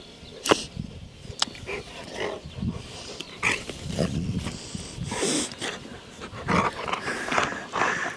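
Rottweiler play-growling and huffing in short, irregular bursts as it wrestles with and mouths a person's hand.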